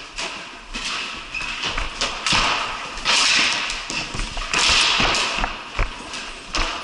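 Ball hockey play: sticks knocking a hard ball and clacking and scraping on the bare floor, a string of sharp knocks mixed with several short scrapes.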